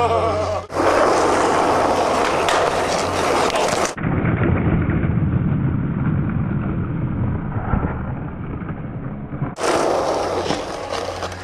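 Skateboard wheels rolling on concrete: a continuous rough rush that turns duller and more muffled about four seconds in, then comes back fuller near the end.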